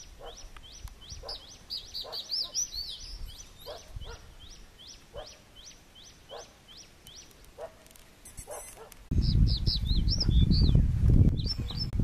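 Male crested bunting calling: a quick run of sharp, high 'chik' notes, about three a second, each sliding down in pitch. Lower calls come in about once a second behind them. About nine seconds in, a loud low rumble covers the calls.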